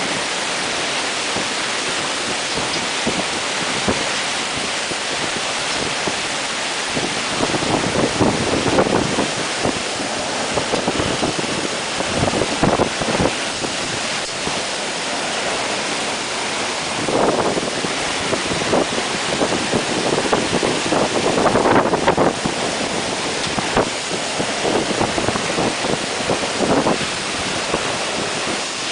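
Typhoon wind and heavy rain: a constant loud hiss of rain and wind, swelling with gusts several times, the wind buffeting the microphone.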